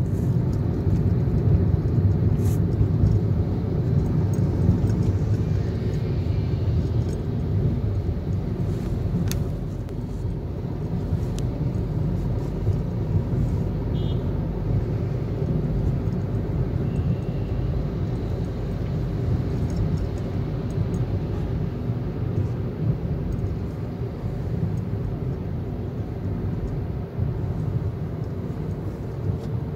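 Steady low rumble of a Hyundai i20 hatchback driving at an even speed, engine and tyre noise heard from inside the cabin, with a few faint ticks.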